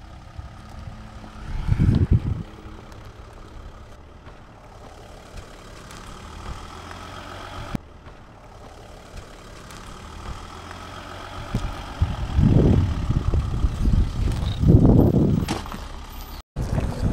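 Engine of a 4x4 camper van running slowly at low revs while it crawls over stony ground. Gusts of wind rumble on the microphone about two seconds in and several times near the end, louder than the engine.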